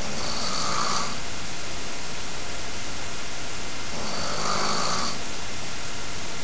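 A sleeping man snoring: two snores about four seconds apart, each lasting about a second, over a steady hiss.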